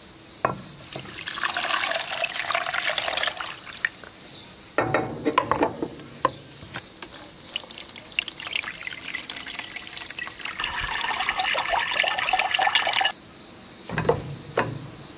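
Water pouring and splashing in two long pours, the second building up over several seconds before stopping abruptly, with a pot knocking between them: wood ash water being mixed and strained through cheesecloth to make the alkaline setting liquid for leaf tofu. A knock is heard near the end.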